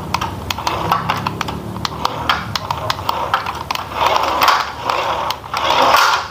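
Toy RC dump truck driving across a wooden tabletop: its small electric drive motor and gearing run with a fast, busy clicking rattle that grows louder in two surges in the second half.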